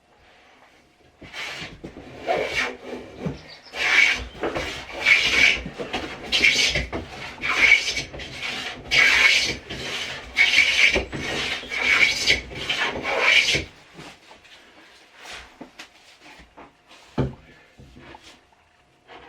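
Steel blade being sharpened on a waterstone: a steady series of rasping back-and-forth strokes, about one and a half a second, which stop about two-thirds of the way through, followed by a few light knocks.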